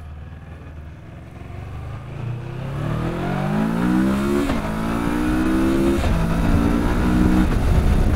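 Kawasaki Versys 650's parallel-twin engine accelerating on the road, its pitch climbing and then dropping at three gear changes, about halfway through and twice more near the end. Wind and road rumble grow louder as speed builds.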